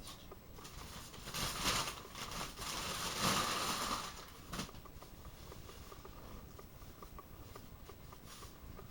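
Wrapping being crumpled and rustled in two bursts, with a light knock about halfway through, then only quiet room sound.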